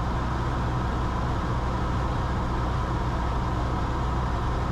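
Cessna 172 engine and propeller drone heard in the cabin in cruise flight: a steady, even hum.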